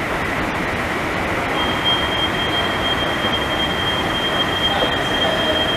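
Hitachi Rail Italy driverless metro train at an underground platform: a steady rushing station and train noise, with a thin high whine that sets in about one and a half seconds in and holds.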